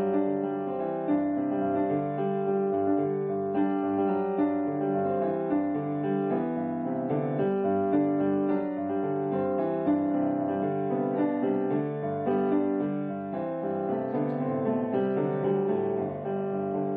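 Background piano music: an unbroken run of notes at an even level.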